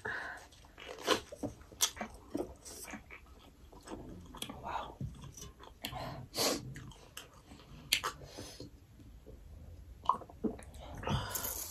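Close-miked eating and drinking: chewing and mouth sounds over mutton momos, with sips from a drink can and a glass and scattered small clicks at irregular moments.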